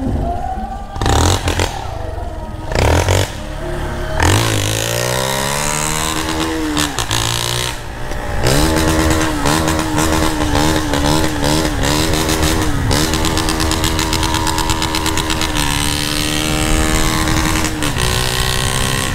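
Motorcycle with a gutted (baffle-removed) muffler accelerating: after a few short bursts of noise, the engine note climbs steeply about four seconds in, climbs again, then holds a loud, fairly steady drone with small wavers as the bike cruises, easing slightly and steadying again near the end.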